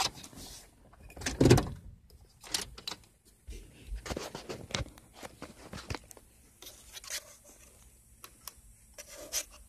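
Scattered clicks, taps and handling noise from a handheld Star Tester diagnostic scan tool having its keypad buttons pressed, with a louder muffled knock about a second and a half in.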